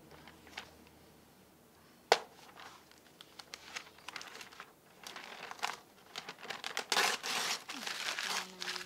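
A sheet of notebook paper being torn and crumpled by hand: scattered crackles that build into dense crinkling over the last few seconds. A single sharp click about two seconds in.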